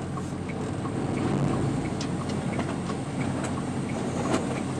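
Cab of a loaded semi truck on a snowy road: the diesel engine runs low and steady under road noise. A faint, regular ticking comes about three times a second, and a few short knocks are heard, the sharpest near the end.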